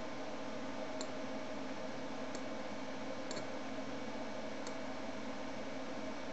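A computer mouse clicking a few times, spaced out, with one double click about three seconds in. Under it runs a steady hiss with a faint low hum.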